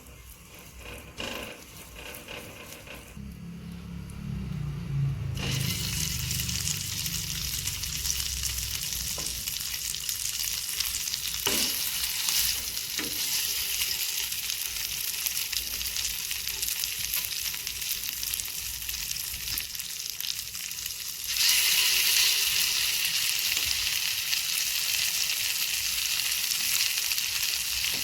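Food sizzling in hot oil in a pan, starting about five seconds in and getting louder about three-quarters of the way through, with a couple of light utensil knocks while it is stirred.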